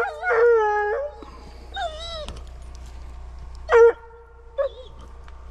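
Hunting hound howling: a long, drawn-out howl at the start, a shorter wavering howl about two seconds in, then a sharp short yelp near four seconds and a brief yip just after.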